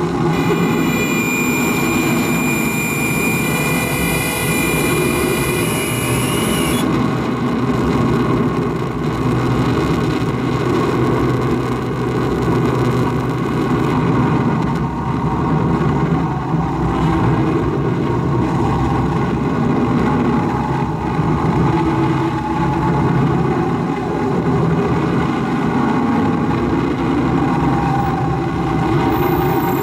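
Live harsh noise music from a tabletop electronics rig: a loud, dense, steady mass of low and middle noise. Over it sits a layer of high whistling tones, with one rising glide, which cuts off suddenly about seven seconds in.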